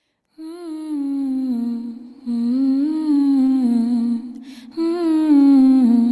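Background music: a wordless, humming-like vocal melody that glides smoothly between held notes, starting about half a second in and breaking off briefly twice.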